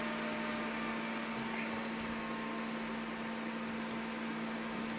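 Steady electrical hum over a low background hiss, with a couple of faint ticks.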